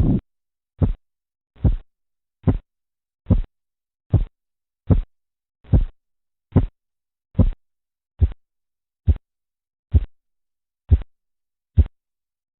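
Korotkoff sounds heard through a stethoscope under a deflating blood pressure cuff: fifteen regular thuds a little over one a second. They grow shorter and then stop near the end, which marks the diastolic pressure.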